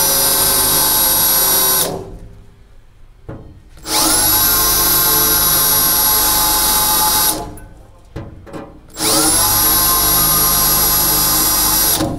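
Cordless drill with a 1/8-inch bit drilling out spot welds in the truck cab's sheet steel, going only through the top layer of metal. It runs in three bursts of about three seconds each, stopping about 2 s in, starting again about 4 s in and about 9 s in, each spinning up to a steady whine.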